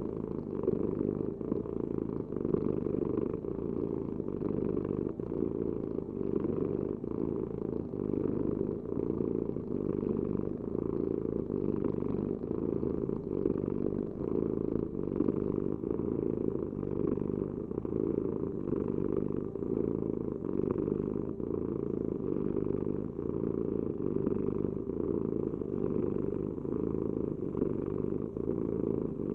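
Domestic cat purring: a continuous low rumble with a faint regular pulse.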